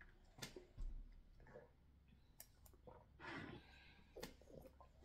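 Faint, scattered clicks and small mouth and table noises of people eating: chewing sounds, with a low thump just under a second in.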